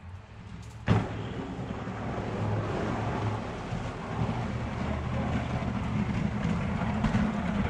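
A Ram 1500 pickup plowing snow as it drives closer: a steady rumble of engine and plow blade scraping snow off the pavement, slowly getting louder. A sharp knock about a second in is the loudest sound.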